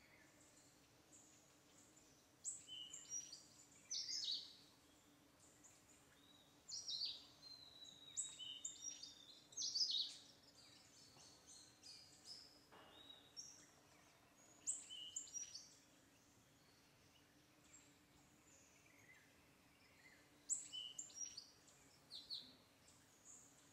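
Birds chirping in clusters of short, high calls that slide sharply downward, with pauses between them, over a faint steady hum.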